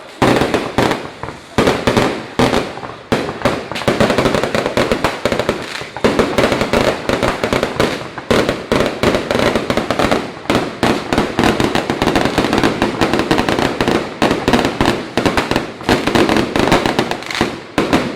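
Fireworks going off in a rapid, continuous barrage of overlapping bangs and crackles, several a second, with a few brief lulls.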